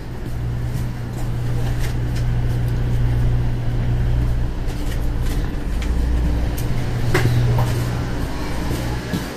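Steady low rumble and hum inside a 500 series Shinkansen carriage, with scattered light knocks and a sharper click about seven seconds in.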